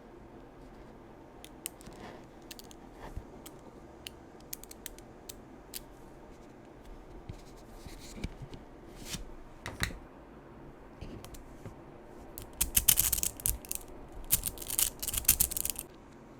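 Small magnetic balls clicking together as they are set in place one by one, then a quick clattering run of many clicks near the end.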